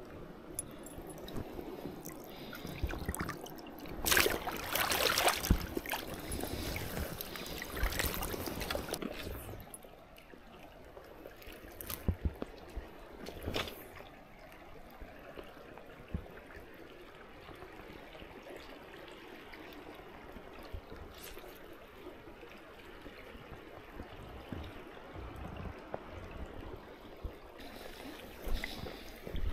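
River water trickling and flowing, with a louder, rougher stretch of water noise from about four to nine seconds in and a few sharp knocks shortly after.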